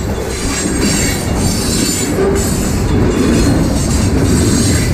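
Freight cars rolling past on the rails: a steady, loud rumble of wheels on track, with a thin high squeal of wheels running over it.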